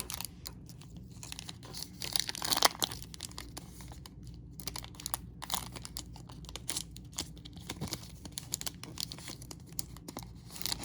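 Trading cards being handled and flipped through by hand: cardboard sliding and rustling with small clicks, louder for a moment about two to three seconds in.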